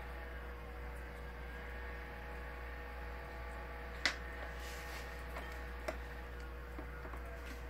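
Steady electrical hum with a faint whine, broken by a sharp click about four seconds in, a smaller click near six seconds and a few faint ticks.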